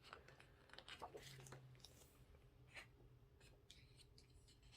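Near silence, with a few faint rustles and light taps of photobook pages being handled, about a second in and once more near three seconds.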